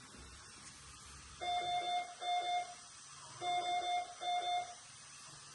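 Electronic alarm of NICU medical equipment beeping: two pairs of short beeps of one steady pitch, each about half a second long, over a low steady hum.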